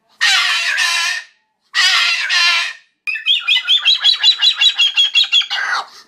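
Moluccan (salmon-crested) cockatoo giving two loud, harsh squawks, then a fast run of short repeated calls, about six a second, for the last three seconds.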